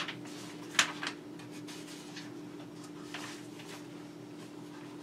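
Quiet room tone with a steady low hum, broken by a few small handling clicks and knocks, the sharpest about a second in.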